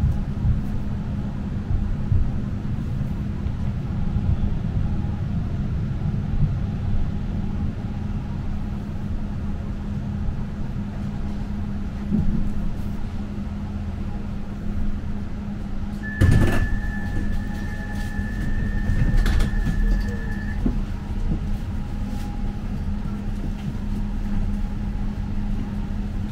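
Tram running, heard from inside the car: a steady low hum over a rumble. About two-thirds of the way through a sharp knock comes, then a steady high electronic beep that lasts about four seconds, with another knock partway through it.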